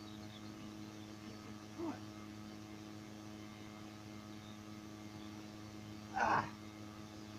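A steady electrical hum of several even tones, over which a man strains at lifting a heavy buried tractor roller: a faint grunt of effort about two seconds in and a louder one about six seconds in.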